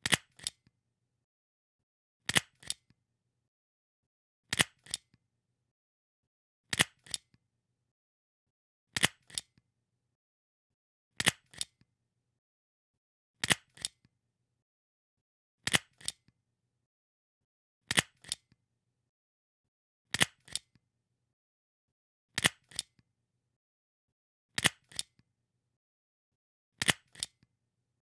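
Stapler pressed over and over, about once every two seconds. Each press is a sharp double click, the two clicks a fraction of a second apart, with a faint tick just after.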